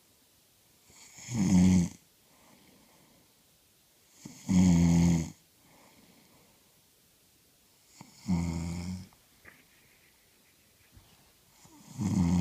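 A woman snoring: four loud snores, each about a second long, coming about every three and a half seconds.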